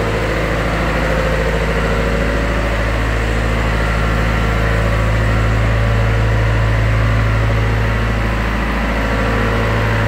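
Caterpillar AP300 asphalt paver's diesel engine idling steadily, a deep even hum.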